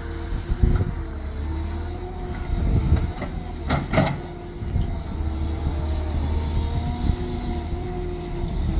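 Caterpillar M318D wheeled excavator's diesel engine running under working load, its pitch rising and falling, with a brief hiss about four seconds in.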